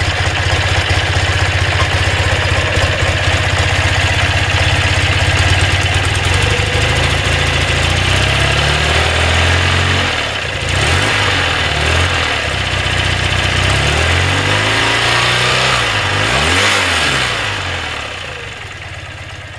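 BMW air-cooled boxer twin engine idling steadily, then blipped several times, its pitch rising and falling with each blip. The sound fades out near the end.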